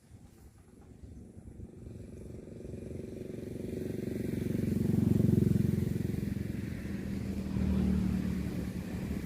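A small engine runs with a steady pitch, growing louder as it comes closer. It is loudest about five seconds in and then stays fairly loud.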